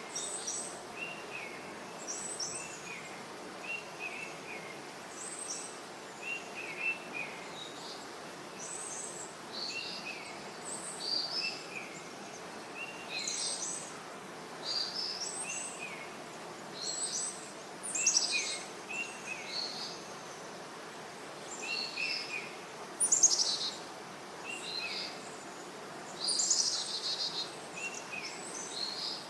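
Birds calling: short, repeated chirping phrases from at least two voices, one lower and one higher, coming every second or two over a steady background hiss.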